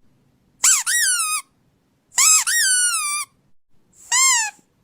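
Squeaky toy squeaked three times, each squeak a high-pitched note that rises and then falls in pitch; the last is the shortest.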